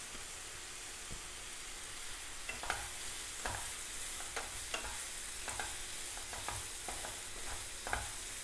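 Chopped onions and freshly added sliced garlic frying in oil in a nonstick pan with a steady sizzle. From about two and a half seconds in, a wooden spatula stirs them, scraping and knocking against the pan in quick, irregular strokes.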